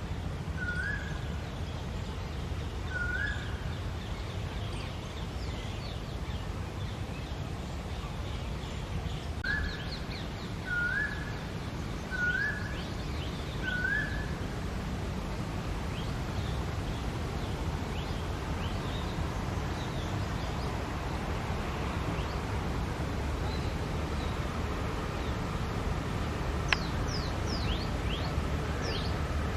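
Asian koel calling: short rising notes, two near the start, then four more about ten seconds in, roughly one every second and a half. A steady low rumble runs underneath, and small birds chirp thinly near the end with a single sharp click.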